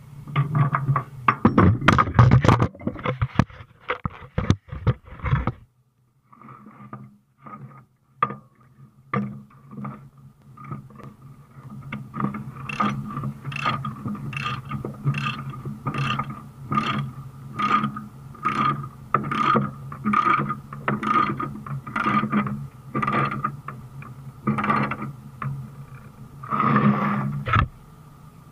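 Transport chain clanking and rattling as it is handled, then a ratchet load binder being cranked tight on the tie-down chain, its ratchet clicking about twice a second, with a steady low hum underneath.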